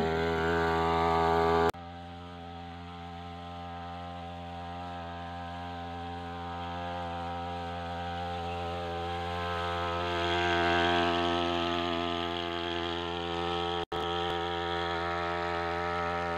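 Backpack power sprayer's small two-stroke petrol engine running steadily at high speed while spraying. The sound drops suddenly in level about two seconds in and cuts out for an instant near the end.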